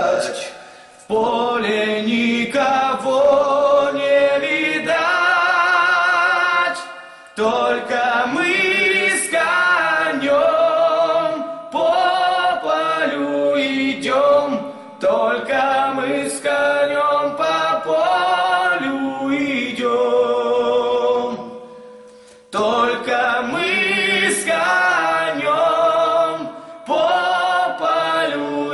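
Two young male voices singing a Russian song a cappella in harmony, in long sung phrases with brief pauses for breath about a second in, about seven seconds in and about twenty-two seconds in.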